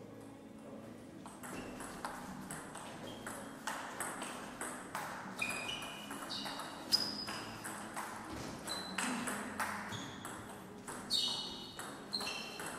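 Table tennis rally: the celluloid ball clicking quickly back and forth off paddles and table, starting about a second and a half in, with short high squeaks between the hits.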